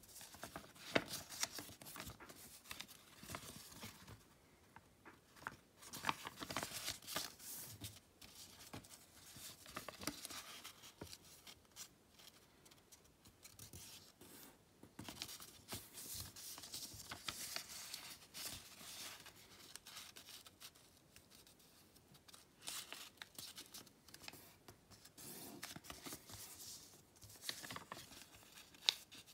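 Sheet of origami paper being handled and folded on a wooden tabletop: irregular bursts of rustling and crinkling as creases are made and pressed, with a few sharp taps.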